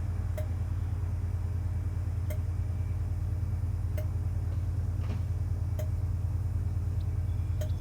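Steady low rumble of a train, with a short click about every two seconds.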